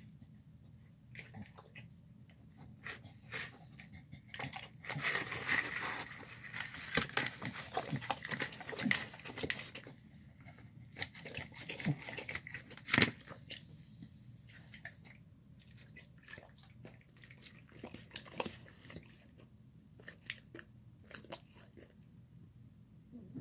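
A large dog eating chicken and rice from a bowl: irregular chewing, smacking and clicks of teeth and mouth, busiest and loudest about five to ten seconds in, then sparser.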